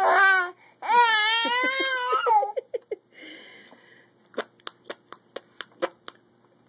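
A baby's short cry, then a long wavering squeal that breaks into a few quick pulses at its end. A run of light clicks follows.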